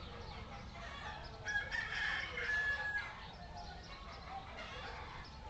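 A rooster crowing once, a single held call lasting about a second and a half, starting about a second and a half in.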